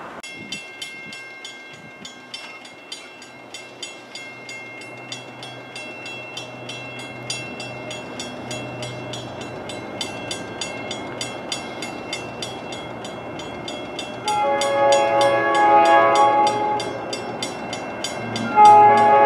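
Grade-crossing warning bell ringing at an even two to three strokes a second, with the low rumble of an approaching diesel locomotive growing underneath. About fourteen seconds in, the locomotive's air horn sounds a long blast, and a second blast starts near the end.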